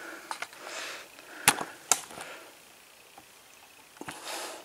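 Two sharp clicks about half a second apart, with soft rustling handling noise around them.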